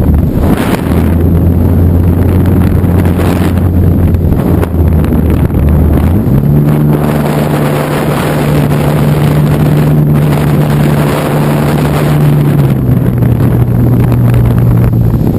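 Wind buffeting the microphone over the steady drone of a radio-controlled Carbon Z Cub model plane's electric motor and propeller. The drone steps up in pitch about six seconds in and eases slightly lower near the end, as the throttle changes.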